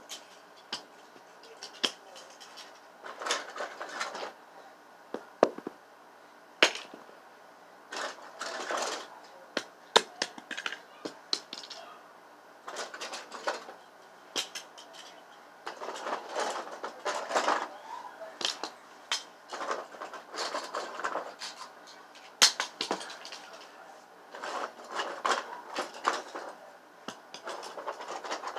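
Irregular clicks, knocks and short scraping rustles of hard objects being handled, with bursts of clatter and some sharp single knocks.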